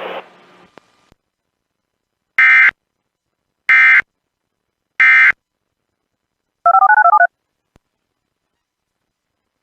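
Emergency Alert System end-of-message code: three short, identical bursts of screeching digital data tone about 1.3 seconds apart, marking the end of the alert. About two seconds later comes a quick run of about eight beeps in alternating pitches.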